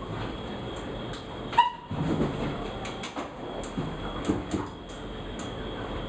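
Shuffling and rustling of a person moving about on hands and knees, with a short high squeak about one and a half seconds in.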